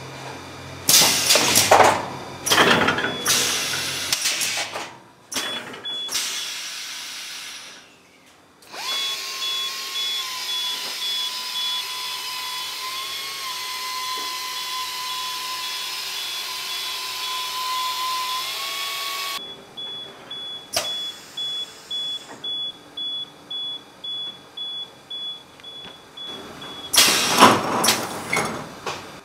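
Textile factory machinery in several cuts: loud mechanical clatter at first, then a fabric linking machine's sewing head running along the points with a steady whine for about ten seconds, then a regular ticking about twice a second, and more loud clatter near the end.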